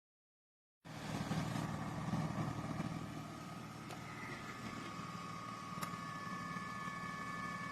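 Robot vacuum cleaner running: a steady motor hum with a high-pitched whine, starting abruptly about a second in.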